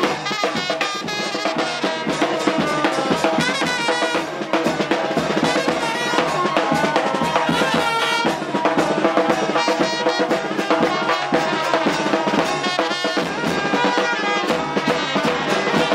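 Music with a steady, driving drum beat and brass.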